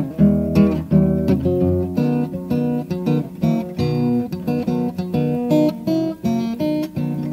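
Background music: acoustic guitar strummed and picked, a steady run of notes and chords.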